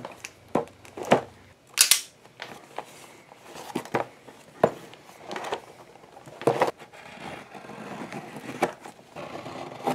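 A cardboard shipping box wrapped in packing tape and clear plastic being handled and cut open with a small hand tool: scattered sharp knocks and crinkling of the plastic and tape, with quieter rustling between.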